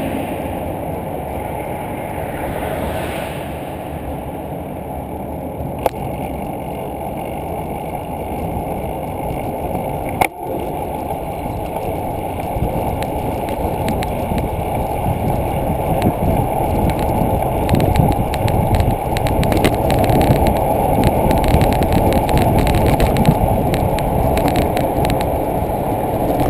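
Wind buffeting the microphone of a bicycle-mounted camera, with tyre and road rumble, as the bicycle rides along a road. Two sharp knocks, the second the louder, come about 6 and 10 seconds in. The rumble grows louder and more gusty after about 16 seconds.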